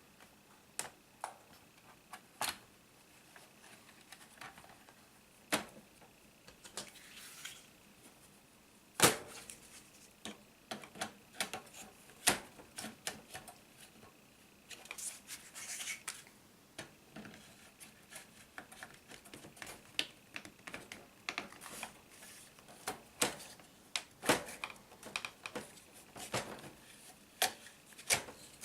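Irregular clicks, taps and light scraping of small plastic and metal parts of an Acer E5-411 laptop being handled during disassembly, with one sharper knock about nine seconds in.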